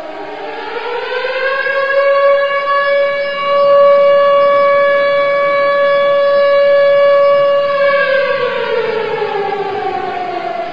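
Civil defence siren sounding the commemorative wail that calls the national moment of silence. Its pitch rises over the first couple of seconds, holds steady, then falls away from about eight seconds in.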